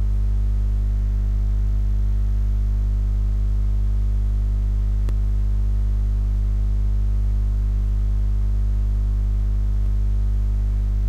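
Loud, steady low electrical hum with evenly spaced overtones, unchanging throughout, with a single faint click about five seconds in.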